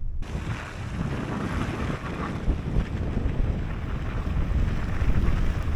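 Wind buffeting the microphone: a rough rushing noise that starts and stops abruptly.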